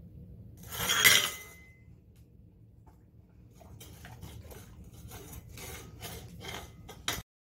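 A small plate clatters down onto a tile floor about a second in, ringing briefly. Then a dog eats sardines off it, licking and scraping the plate at about three strokes a second, until the sound cuts off abruptly near the end.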